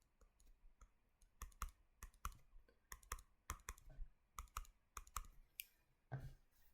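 Near silence with faint, irregular clicks, about two or three a second, starting about a second and a half in, and a soft low sound shortly before the end.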